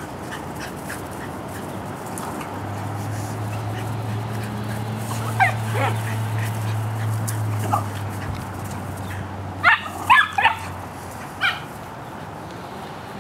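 Dogs at play, yipping and barking in short, sharp calls: a few scattered yips, then a quick run of three about ten seconds in and one more shortly after.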